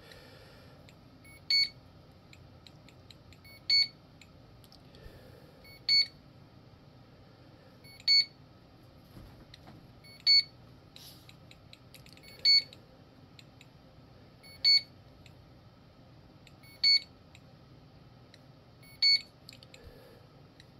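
RC boat electronics beeping during radio binding: a short electronic beep about every two seconds, nine in all.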